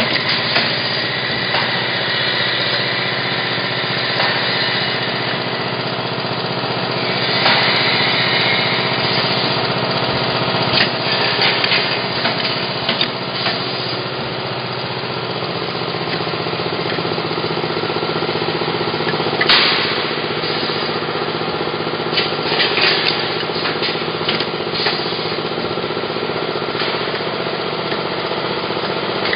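Automatic plastic-bottle neck-cutting and deflashing machine running with a steady motor hum, broken by occasional sharp clicks and knocks.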